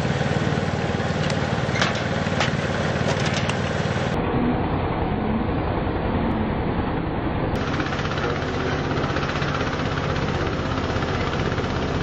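An engine running steadily with a low, even hum, with a few sharp clicks in the first few seconds.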